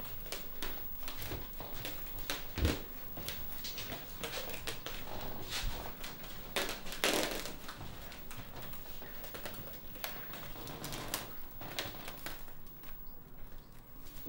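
Bubble wrap crinkling and crackling with dense small clicks as it shifts and rubs, with a dull thump about two and a half seconds in and a louder rustle about halfway through.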